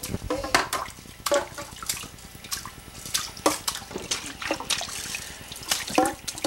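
Bathwater splashing and sloshing in irregular splashes as a baby is bathed and slaps at the water.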